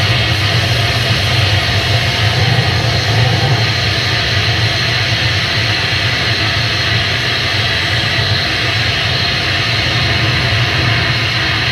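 Electric guitar played through a chain of effects pedals, giving a steady, dense wash of noise over a strong low hum, with no beat or breaks.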